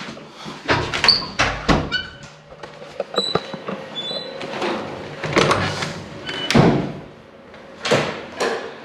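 Interior doors being pushed open and swinging shut, with short squeaks and a run of knocks and footsteps in between.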